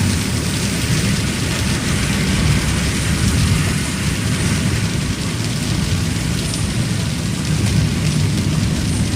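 Heavy rain falling on a moving car, heard from inside the cabin, over a steady low rumble of the car on the road.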